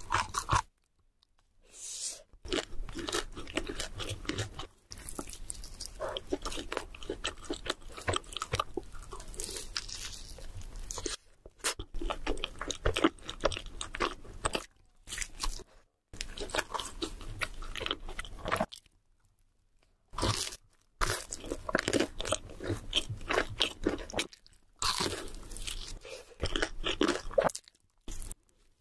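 Close-miked crunching and chewing as crispy fried food is bitten into again and again, with sharp crackly bites in quick succession, broken by a few short silent gaps.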